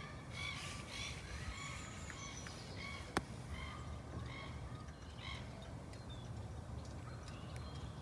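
Birds calling: many short, harsh calls repeated in quick succession, busiest in the first few seconds and thinning out later. A single sharp click about three seconds in.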